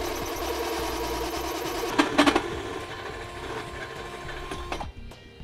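Cordless right-angle drill running a 3/4-inch hole saw into the top of a rear suspension lower control arm, a steady motor whine that stops near the end. A few sharp clicks about two seconds in.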